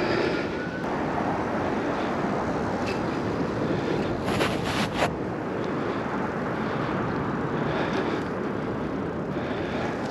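Steady rushing noise of riding a bicycle: wind over the microphone with tyre and road noise underneath. A brief rattle of sharp clicks comes about four and a half seconds in.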